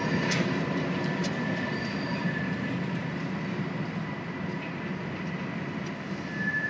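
Freight train rolling away over the grade crossing: a steady low rumble with a thin wheel squeal and a couple of wheel clicks on the rail joints in the first second and a half.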